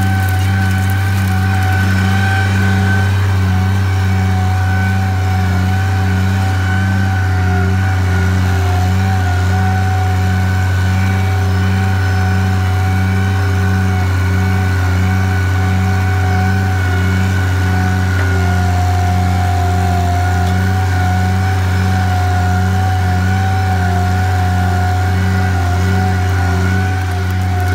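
Oliver 770 tractor's six-cylinder engine running steadily at wide-open throttle under load, pulling a 10 ft John Deere RWA disc harrow in fourth gear, with a steady whine over the engine note.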